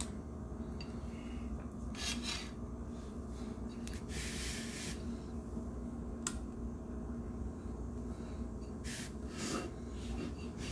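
Chopsticks scraping and tapping inside an open metal sardine tin and on a ceramic plate as oily sardines are lifted out and laid down: a few short scrapes, one longer about four seconds in, and a single sharp click about six seconds in.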